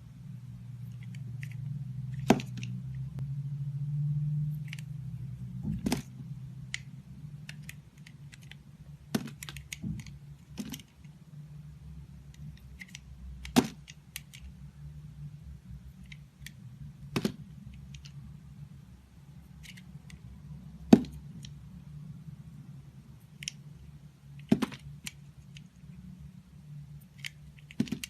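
Dry bar soap being cut: a sharp, crisp crack every three or four seconds, with fainter crumbly ticks between, over a steady low hum.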